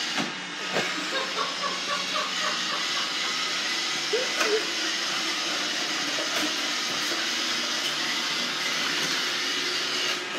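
Robot vacuum cleaner running steadily: an even hiss of its motor and brushes with a few steady hums underneath.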